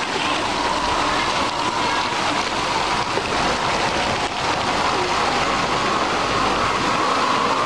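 Steady rushing and splashing of water from the spray jets and fountain of a splash-pad water playground falling into shallow pool water.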